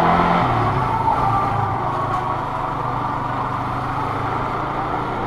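Yamaha Sniper 150 motorcycle engine running while riding. Its pitch drops once about half a second in, then holds steady.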